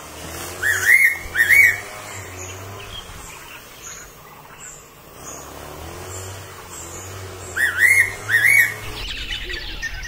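Fairy pitta calling: a loud two-note whistle, each note rising then falling, given about a second in and again near the end. Faint high chirps of other birds sound in the background, and they turn busier in the last second.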